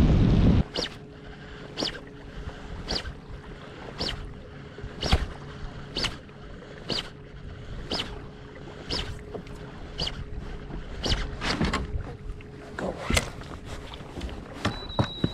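Lake water slapping against a boat's hull about once a second as the boat rides the chop, over a faint steady hum. A short high tone sounds near the end.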